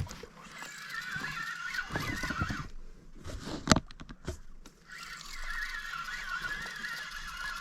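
A flock of birds calling in wavering, overlapping high tones, with a few dull knocks in the pause between; the loudest knock comes a little after halfway.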